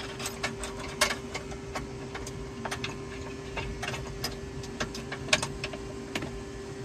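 Irregular light metal clicks and taps as metal J clips are hooked into the back of a van's seat base, over a faint steady hum.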